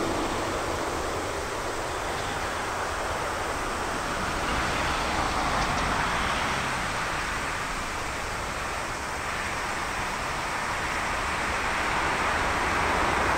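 Jet engine noise of a landing Airbus A340-300 with its four CFM56 turbofans, heard from beside the runway during touchdown and rollout: a steady rushing sound that swells about six seconds in, eases a little, then grows again near the end.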